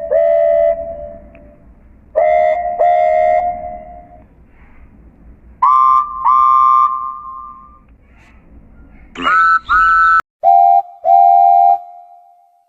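A string of train whistles, each sounding two short blasts, with the pitch changing from one pair to the next. The highest pair, about nine seconds in, slides up in pitch as each blast starts.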